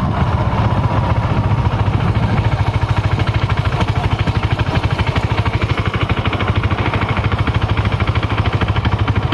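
Motorcycle engine running steadily while riding at low speed, with a loud, even, fast exhaust pulse.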